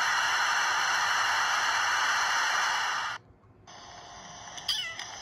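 Steady rushing of river water, a loud even hiss that cuts off about three seconds in. After that there is only quiet indoor background, with a brief high wavering call near the end.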